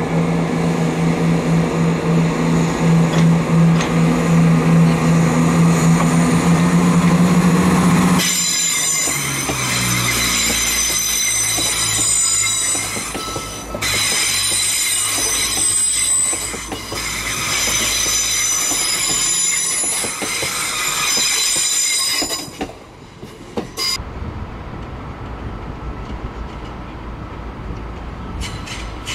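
Class 170 Turbostar diesel multiple unit with its engines running under power, a strong steady note. About eight seconds in it gives way to wheels squealing on curved track, several high whining tones over a low rumble. Near the end it settles to a quieter rumble as a unit rolls in.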